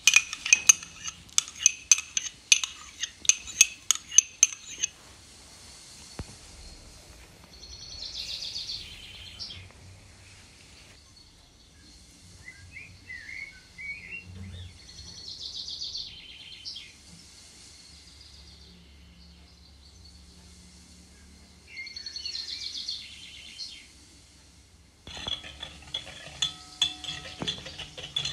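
A wire whisk and utensils clinking and scraping in a glass mixing bowl as batter is mixed. Sharp clinks come in the first few seconds, then softer stirring with pauses, and fast whisking clicks near the end.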